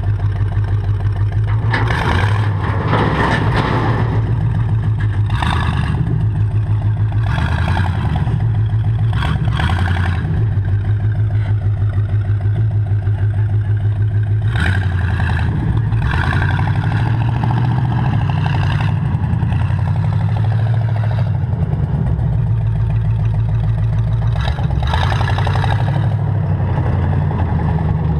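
Engine of a tracked pickup-truck conversion running with a steady low drone. There are about seven short, louder surges, each a second or two long, as it drives on its tracks.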